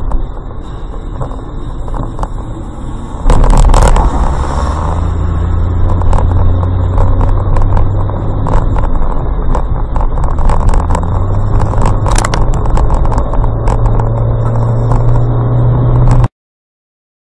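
Car noise recorded from inside a car driving on a wet road in rain: an engine hum that steps up and down in pitch, with tyre and spray noise and scattered clicks. The loudness jumps suddenly about three seconds in, and the sound cuts off abruptly near the end.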